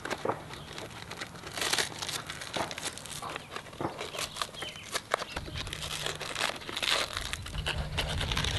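Hook-and-loop (Velcro) straps being pressed down and pulled snug to fasten a padded back pad onto a paramotor frame: an irregular run of short crackling rasps and rustles. A low rumble joins about halfway through.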